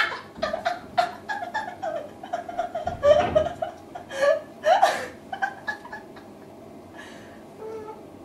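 Two women laughing together in quick runs of short 'ha' pulses, with louder bursts about three and five seconds in, then dying down toward the end.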